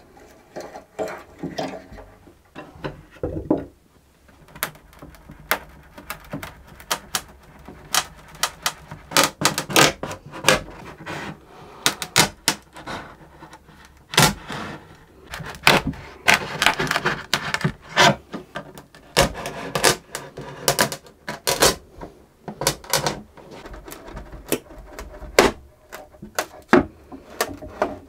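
Cello top being prised off its ribs with an opening knife: irregular sharp clicks and small cracks as the glued seam gives way along the edge, coming thickest in the middle of the stretch. In the first few seconds, lighter clicks and rattles as the strings are taken off at the pegs.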